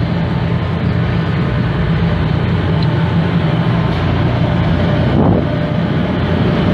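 Steady low drone of a car ferry's machinery under way, a constant hum with wind noise on the microphone over it.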